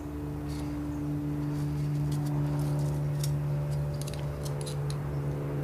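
Light metallic clicks of steel flywheel end-play shims being picked through and measured by hand, about a dozen scattered clicks over a steady low hum.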